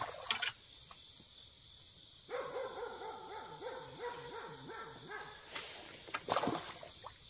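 A dog barking in a quick run of repeated barks, starting about two seconds in, over a steady high hiss.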